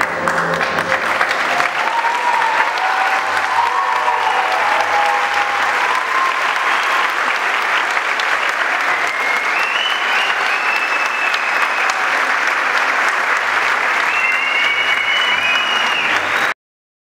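Audience applauding steadily, with voices calling out now and then above the clapping; it cuts off suddenly near the end.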